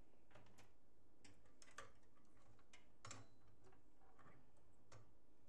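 Faint, irregular small clicks and taps of computer cables and connectors being handled.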